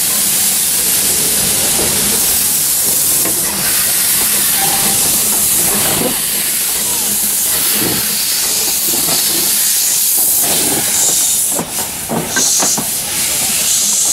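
Narrow-gauge steam locomotive passing close by with a loud steady hiss of escaping steam. A few knocks come near the end.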